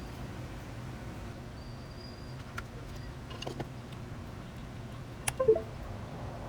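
A few light clicks and taps over a low steady hum, the loudest pair about five seconds in: PBT keycaps being pressed onto a mechanical keyboard's switches.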